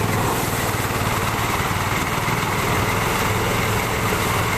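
Small engine of rice harvesting machinery running steadily at an even speed, with a constant dense mechanical noise over its hum.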